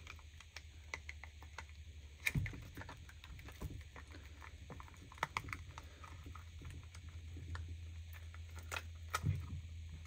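Silicone mold being flexed and peeled off a cured resin casting, giving many small irregular clicks and crackles as it releases, with a few sharper snaps.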